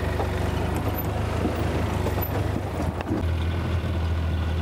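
Vehicle engine running low and steady as it creeps down a steep, rough dirt track, heard from on board; its pitch steps about three seconds in.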